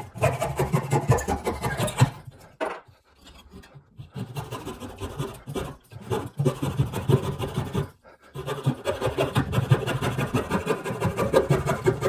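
Coping saw cutting out the waste between dovetails in a wooden board, sawing in short, quick strokes. The strokes stop briefly about two and a half seconds in and again near eight seconds.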